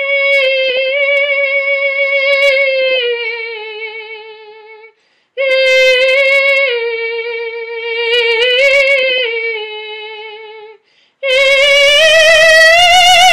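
A solo woman's voice singing long, held notes in three phrases, with short breaks between them. The last phrase is the loudest and swells with a wide vibrato.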